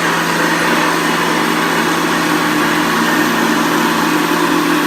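1975 Hoover Senior Ranger upright vacuum cleaner running steadily, its motor giving a constant hum under a broad whooshing noise.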